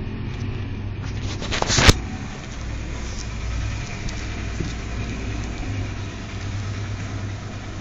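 Steady low rumble, with a brief loud crackle about two seconds in.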